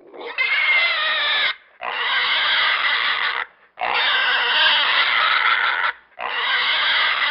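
Pig squealing in four long, loud, shrill squeals with short breaths between them; the last squeal is still going at the end.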